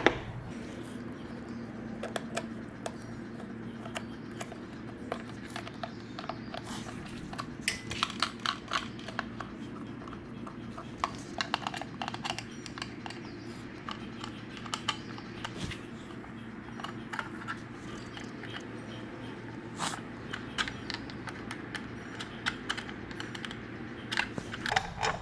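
Irregular clicks, taps and light clatter of hands and tools taking the cover and filter off a Briggs & Stratton generator's air filter housing, over a steady low hum.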